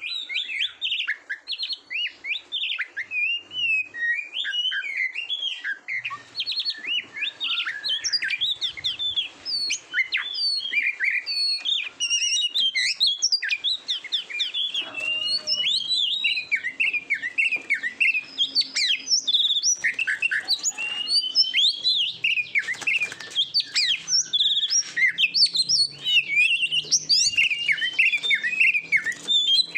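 Oriental magpie-robin (kacer) singing a continuous, rapid song of varied whistles, chirps and trills without pauses, the full, constantly singing song kept by keepers to train their own birds.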